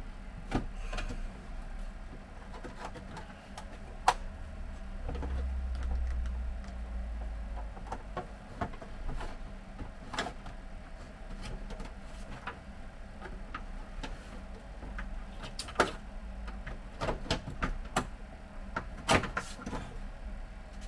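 Scattered plastic clicks, taps and knocks as the screwless scanner housing of a Brother DCP-T226 printer is worked open by hand, with a low handling rumble about five to eight seconds in.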